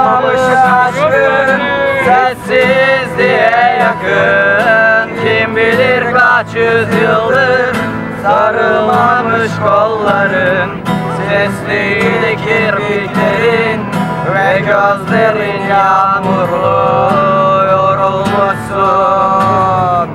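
A man singing over a strummed acoustic guitar.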